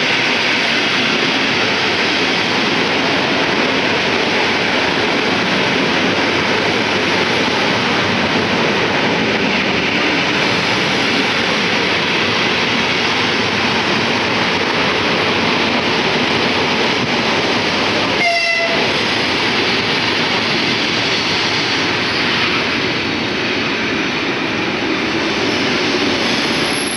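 EP2D electric multiple unit pulling into a station and rolling past at close range: a loud, steady rumble of wheels on the rails and running gear as the cars go by. There is a short, sharp tonal blip about two-thirds of the way through.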